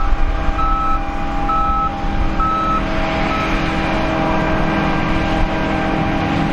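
A vehicle's backup alarm beeping about once a second over a steadily running engine. The beeping stops about halfway through while the engine keeps running.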